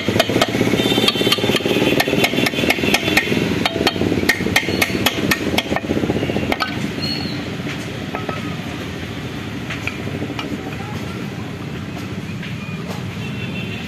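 A hammer striking metal on a motorcycle engine crankcase during reassembly, in repeated sharp taps about two to three a second with a metallic ring. After about six seconds the hammering stops, leaving only a few scattered metal clinks over a steady background noise.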